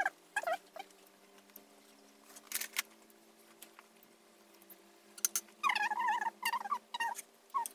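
A few short, high-pitched warbling animal calls, most of them in a cluster about five seconds in, over a steady low hum.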